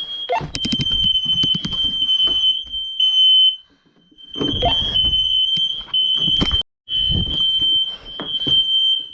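Interconnected hardwired smoke alarms (Firex i4618AC) sounding together during a system test, one held in test mode so that all of them alarm. The sound is a piercing high-pitched tone that breaks off briefly twice.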